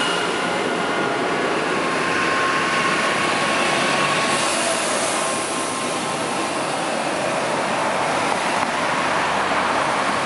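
Fendt 924 Vario tractor towing a Krone Big Pack baler driving past: steady engine and tyre noise with a faint whine.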